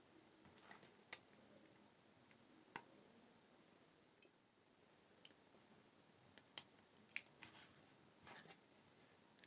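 Faint, scattered sharp clicks and ticks, about ten, with no steady rhythm, against a near-silent room: jewelry pliers and brass wire being handled.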